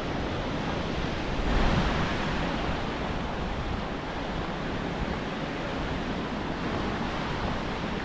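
Steady rushing of a waterfall on the Skógá river, with a gust of wind hitting the microphone about a second and a half in.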